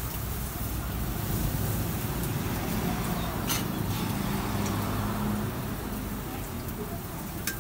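Steady low rumble of road traffic, with a sharp click about three and a half seconds in and another near the end.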